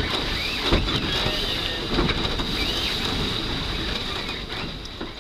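Wind buffeting the microphone over the rush and slap of choppy water alongside a sailing yacht under way, a steady noise that starts to fade near the end.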